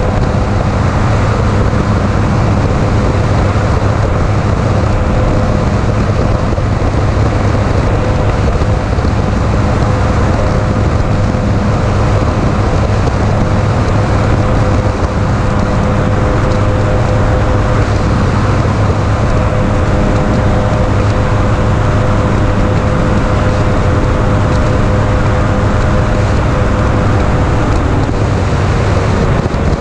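Bass boat running at full speed on its 300XS outboard: a steady, unchanging engine drone with a constant rush of wind and water over it.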